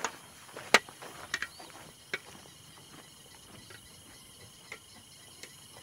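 Footsteps crunching on dry pine needles and stones. Sharp steps come in the first two seconds and fade as the walker moves away. Under them runs a steady, faint, high insect drone.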